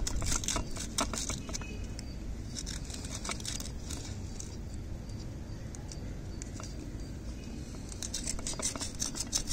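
Emery paper scratching back and forth over the rusted contact points of a clothes iron's thermostat, a quick run of short scrapes, busiest near the start and again near the end. The rust is being sanded off so the contacts touch again and the iron heats.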